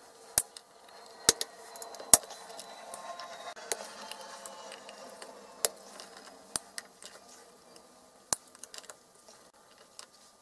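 Small sharp metallic clicks and taps, about seven of them at irregular intervals, from metal parts and tools being handled while a transponder's RF section is dismantled, with a faint rubbing sound between them during the first six seconds.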